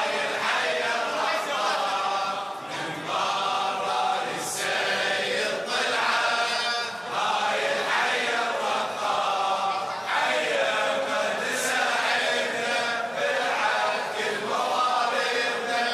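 Men's voices chanting the refrain of a Shia latmiyya (religious lament chant) together, in a continuous sung line that rises and falls.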